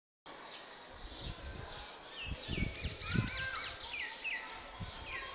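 A flock of small birds chirping, many short, quick calls overlapping one another, with a few dull low thumps about two to three seconds in.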